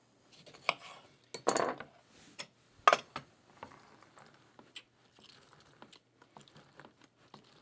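Kitchen knife cutting a lemon on a wooden cutting board, with a few sharp knocks on the board, the loudest about three seconds in. Then a lemon half is pressed and twisted on a small stainless-steel hand juicer, with faint light ticks.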